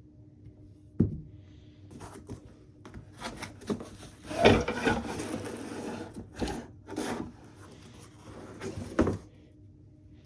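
Unboxing handling noise: a sharp knock about a second in, then several seconds of rubbing and scraping as the racquets and their packaging are moved about. Another knock comes near the end.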